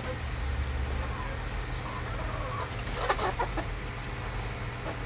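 Hens clucking softly as they settle on their roosting perch for the night, with a short cluster of clucks about three seconds in over a steady background hiss.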